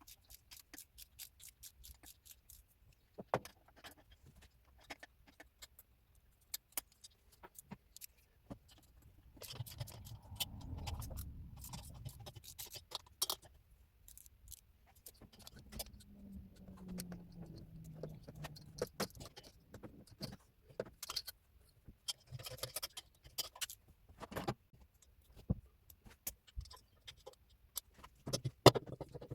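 Metal hand tools and engine parts clinking, tapping and rattling in a string of short sharp clicks, as the engine is being taken apart, with a brief low rumble partway through.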